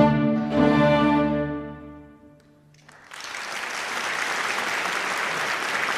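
Orchestra with strings ending a piece on a final chord that dies away about two seconds in; after a short hush, the audience starts applauding, steady to the end.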